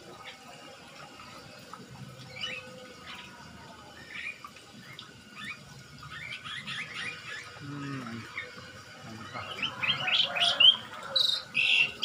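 Several songbirds chirping and calling in an aviary: short high chirps throughout, getting busier and louder over the last few seconds.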